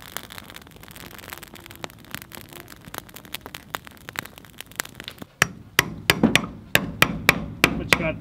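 A hammer driving a chisel into a log to knock off stubborn leftover bark: sharp, rapid strikes at about four a second, starting about five seconds in. Before that, a faint patter of irregular small clicks.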